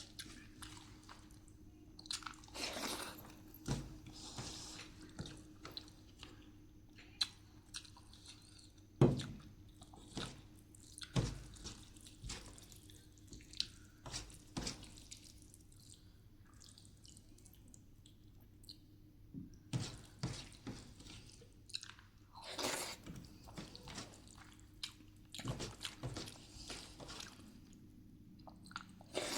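Close-up eating sounds: chewing and wet, squishy mouthfuls of rice with dal and mashed potato, with many small clicks and a couple of sharper knocks a third of the way through.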